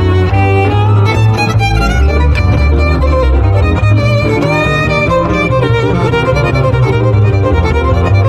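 Live swing jazz: a violin plays a melody with vibrato and slides, over a plucked double bass and an archtop guitar keeping the rhythm.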